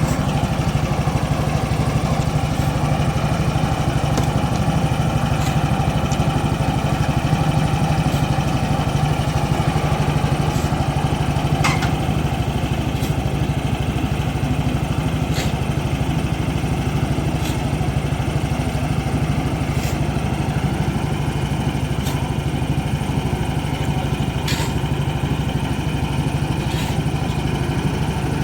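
An engine running steadily at a constant speed, with a few sharp clicks or taps now and then over it.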